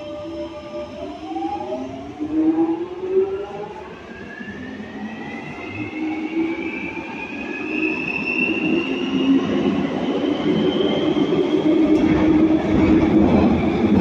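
London Underground 1996 Stock Jubilee line train pulling away and accelerating: its traction motors give a whine that climbs steadily in pitch over several seconds. The rumble of the wheels in the tunnel grows louder towards the end.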